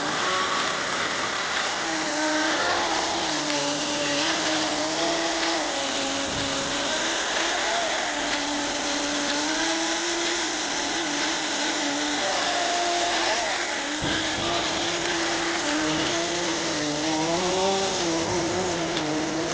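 Kyosho GX-15 nitro glow engine of an RC snowcat running at high revs, its pitch holding, dipping and rising again as the throttle is worked, wobbling up and down quickly near the end.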